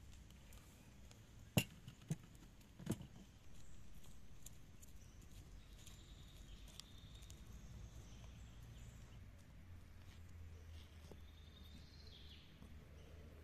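A wooden cutting board set down on a wooden table: three sharp knocks between about one and a half and three seconds in, the first the loudest. After that only faint outdoor ambience, a low steady hum with a few faint bird calls.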